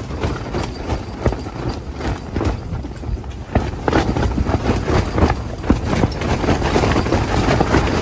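Strong gusting wind rumbling on the microphone, with rapid, irregular flapping snaps. It grows louder about three and a half seconds in.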